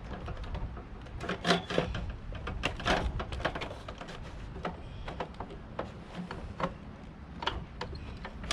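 Curtains being hung back up: a string of irregular clicks, knocks and rattles of curtain hardware being handled, with the sharpest knocks about a second and a half and three seconds in.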